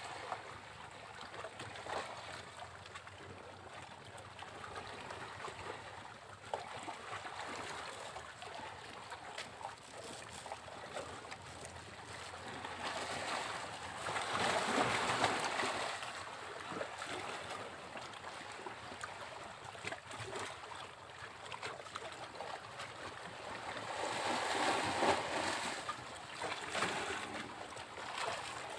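Sea waves washing onto a beach: a steady hiss of foam and trickling water, with two louder waves breaking, one near the middle and one a few seconds before the end.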